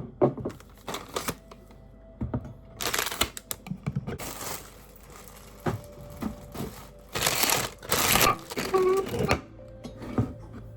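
Irregular knocks and clicks of household objects being handled, with a few short, loud bursts of rustling noise, over faint background music.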